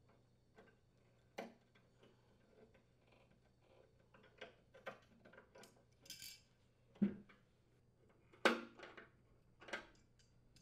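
Scattered light metal clicks and clinks of a sheet-metal rear mounting clip being worked loose from the edge of an electric range's main top with pliers, with a dull knock about seven seconds in and the loudest clank a moment later.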